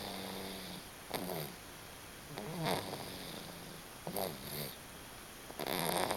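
A three-month-old baby snoring in his sleep, one snore on each breath about every second and a half.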